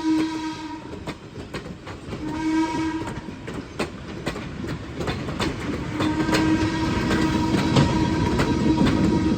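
Steam whistle of Baldwin 0-6-0 switcher No. 58: a blast ending right at the start, a short blast about two seconds in, and a long blast from about six seconds in, typical of a grade-crossing whistle sequence. Under it, sharp clicks and clatter of the moving locomotive grow louder.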